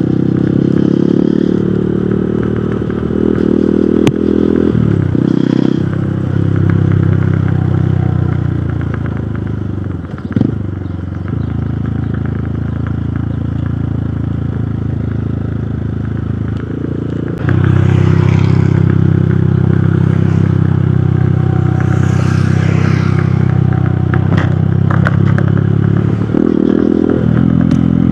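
Hero Hunk motorcycle's single-cylinder four-stroke engine running under way. The engine note shifts pitch a few times, eases off about ten seconds in, and picks up louder a little past halfway.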